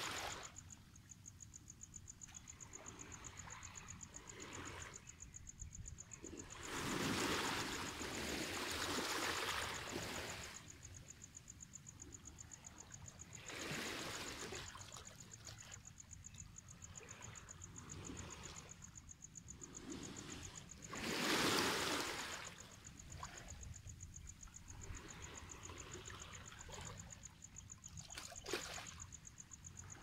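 Small waves washing in over a stony beach, a soft rush every few seconds with the biggest washes near a quarter of the way in and about two-thirds through. Under it, a steady high, rapidly pulsing insect trill.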